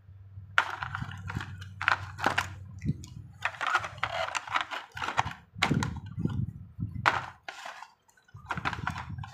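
Small plastic action figures being handled and placed into a thin clear plastic blister tray: crinkling of the tray and irregular clicks and knocks of the figures against it.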